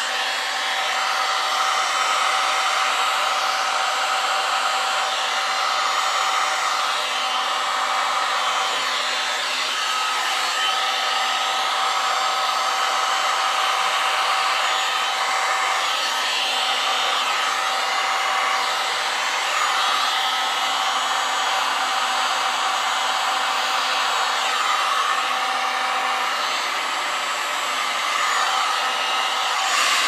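Electric heat gun blowing steadily, a rush of air with a steady fan whine, as it is played over wet epoxy resin to spread the white into waves.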